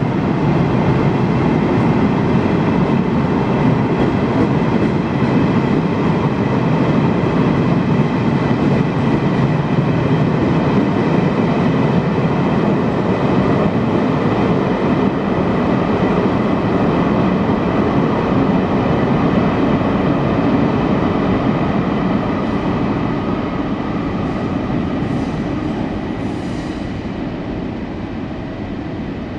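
Chu-Kuang Express passenger coaches running out of an underground station: the steady running noise of wheels on rail as the last cars pass, fading slowly over the last several seconds as the train pulls away into the tunnel.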